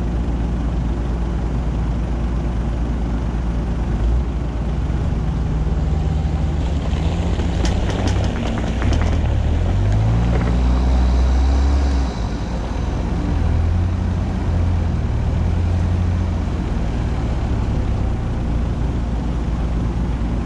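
Mitsubishi Pajero's engine pulling under load through deep mud, the revs climbing for several seconds, dropping suddenly about twelve seconds in, then building again. A brief cluster of sharp knocks and cracks comes about eight seconds in.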